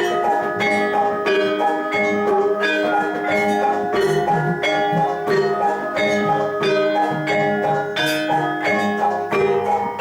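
Javanese gamelan playing jathilan accompaniment: bronze metallophones and gong-chimes struck in a steady, even rhythm, each note ringing on.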